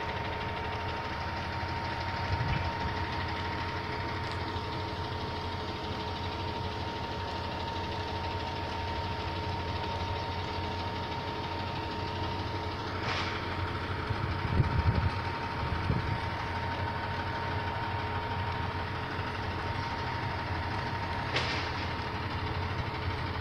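Truck engine idling steadily under a constant high whine, with a few low thumps about two-thirds of the way through.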